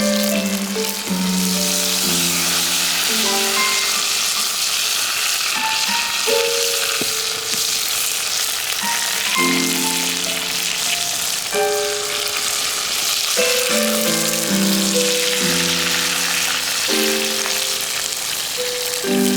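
Steady sizzling and crackling of a campfire burning wood offcuts, under background music with a slow melody of held notes.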